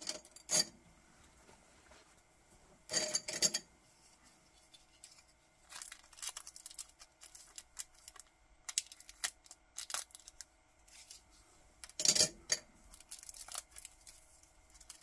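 A small clear plastic bag of watch spring bars is cut and picked open: crinkling plastic, light clicks and handling rustle. Louder rustles come about three seconds in and again near twelve seconds.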